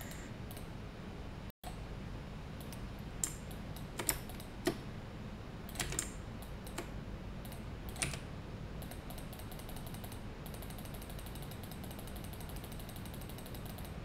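Computer keyboard keys being pressed: scattered sharp clicks, then a fast, even run of faint clicks in the second half, over a low steady hum.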